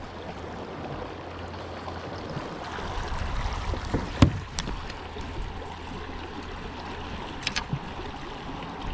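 River water running steadily around a kayak, with a single sharp click about four seconds in and a few lighter clicks near the end.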